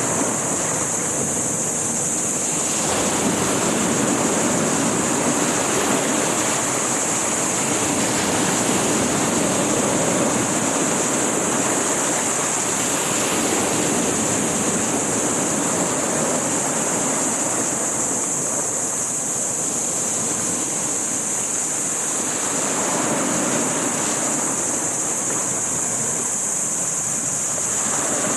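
Steady rush of sea surf and wind on the microphone, swelling and easing every several seconds, under a constant high hiss.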